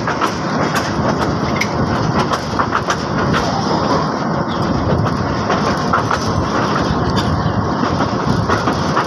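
Bangladesh Railway Chilmari Commuter passenger train running slowly, heard from on board: a steady rumble with irregular sharp clicks and clatter of the wheels on the rails. This is one of the country's worst-kept stretches of track, where trains run at only about 10 to 20 km/h.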